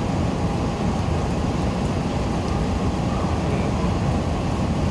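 Steady low rumbling noise on the open deck of a ferry at sea: wind across the microphone over the drone of the ship.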